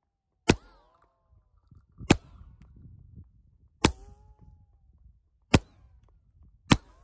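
Five 9mm shots from a Ruger PC Carbine hitting a target near the microphone, each a sharp crack, spaced about one and a half seconds apart. Several are trailed by a short whine from a ricochet.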